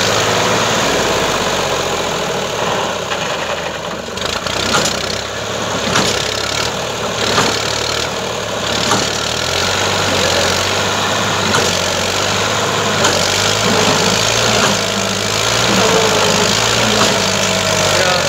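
IMT 540 tractor's diesel engine running hard under heavy load as it drags a loaded trolley out of soft, rutted ground, with sharp knocks at intervals. The engine speed rises over the last few seconds.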